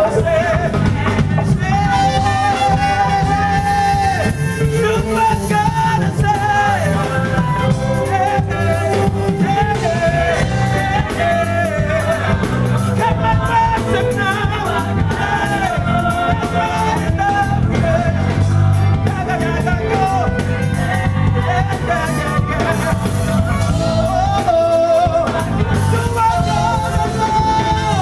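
Live church band playing with a sung melody carried over it: drums, bass guitar, electric lead guitar and keyboard, with a heavy, steady low end and a constant cymbal beat.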